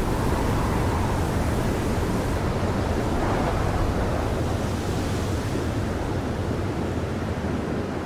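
Steady rushing wind of a desert sandstorm, easing a little near the end.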